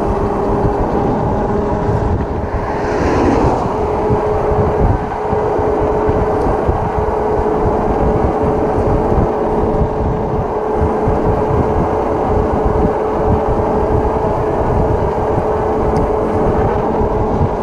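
Rad Power Bikes e-bike at about 20 mph: steady whine of its hub motor over wind buffeting the handlebar camera and the rush of the tyres.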